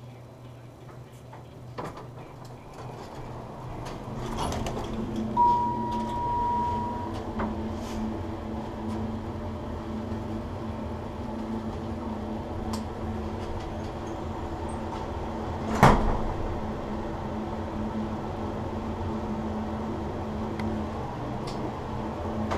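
Elevator doors slide and a single steady electronic beep sounds about five seconds in, then the elevator car hums steadily as it travels. A sharp knock comes about sixteen seconds in.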